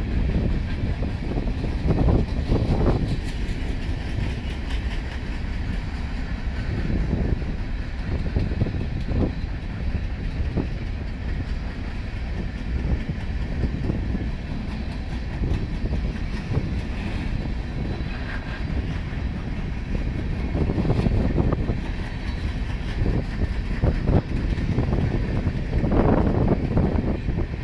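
Coal hopper cars of a Norfolk Southern freight train rolling past, a steady rumble and clatter of steel wheels on the rails, swelling louder now and then.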